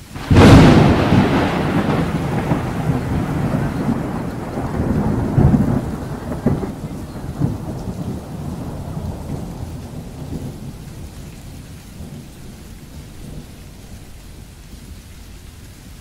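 A close thunderclap cracks about half a second in and rolls on as long rumbling thunder, with a few louder cracks between five and seven seconds in, then dies away over roughly ten seconds. Heavy rain beats steadily on the car throughout, heard from inside the car.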